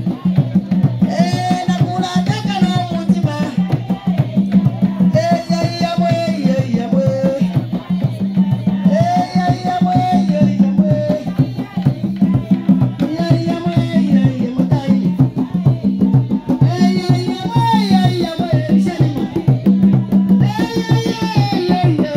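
Live traditional music: a woman singing into a microphone in short repeated phrases over fast, steady hand-drumming on wooden drums.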